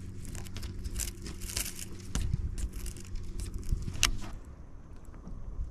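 Irregular clicking and crackling handling noise over a steady low hum; the clicks and hum both stop about four seconds in.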